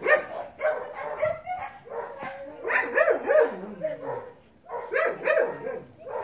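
Dogs play-fighting, barking and yipping in short clustered bursts every second or two.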